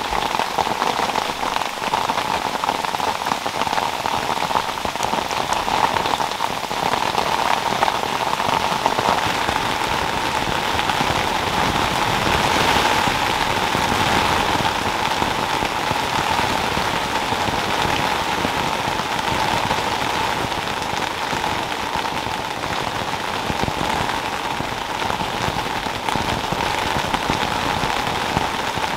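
Rain falling steadily on the fabric of a small dome tent, heard from inside the tent: an even, dense patter of drops.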